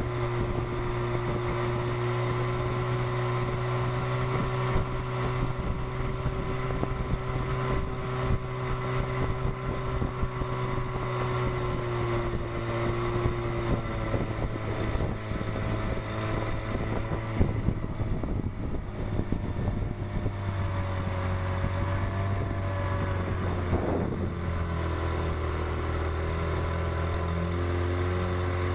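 1957 Johnson Sea Horse 18 hp two-stroke twin outboard driving a small runabout at high throttle, a steady buzzing engine note that drops somewhat lower about two-thirds of the way through. Wind rushes over the microphone.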